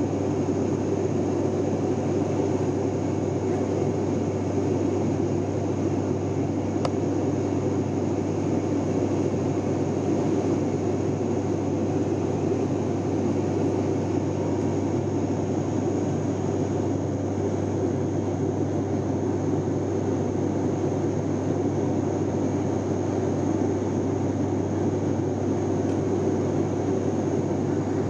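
Turboprop airliner's engines and propellers heard from inside the cabin: a steady drone with a constant low hum under an even rushing noise, unchanging throughout.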